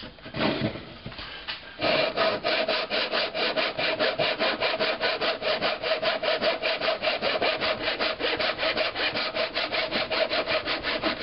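Buck Bros backsaw cutting a small block of wood in a saw-guide jig: quick, even back-and-forth strokes, about five a second, starting about two seconds in after a few light knocks as the saw is set in place.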